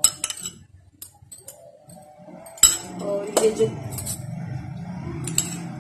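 Metal spoon and ceramic bowls clinking and knocking against each other and the tabletop. There are a few sharp clinks at the start, a louder knock about two and a half seconds in, more clinks just after and one near the end, over a low background murmur.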